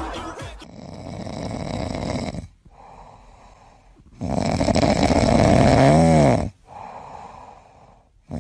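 A sleeping kitten snoring: slow breaths alternating louder and quieter, two rounds in all, the louder second one ending in a short squeaky wavering tone.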